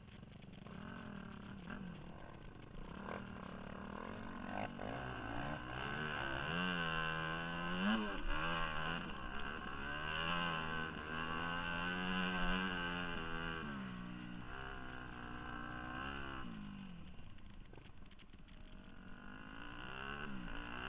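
2002 Yamaha YZ250F's 250 cc four-stroke single-cylinder engine accelerating under way, its pitch climbing and dropping again and again with throttle and gear changes. It builds up over the first few seconds, eases off about three-quarters of the way through, then picks up again near the end.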